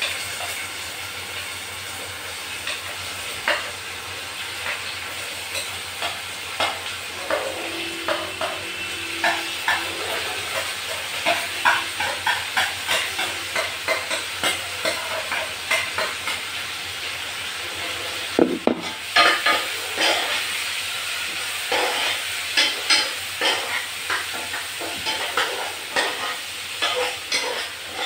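Chopped onions sizzling as they fry in hot mustard oil in a small pan. A steel spoon scrapes and clinks against the pan and the plate in quick, irregular strokes, which come more often in the second half.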